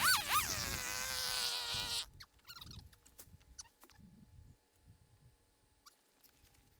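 Two-stroke chainsaw revving with quick rises and falls in pitch, cutting off abruptly about two seconds in; faint scattered clicks and rustling follow.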